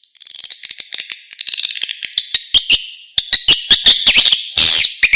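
Swiftlet lure call track: dense high-pitched swiftlet twittering laced with a run of sharp clicks, building up over the first second and growing louder and more regular. It is an outdoor calling sound played to draw edible-nest swiftlets to a swiftlet house.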